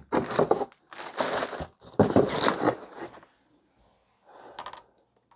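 Packaging crinkling and rustling as it is handled, in three loud bursts over the first three seconds and a fainter one near the end.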